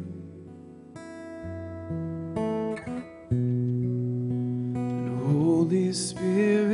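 Acoustic guitar strumming slow sustained chords, which change every second or so. A voice sings a held, rising line near the end.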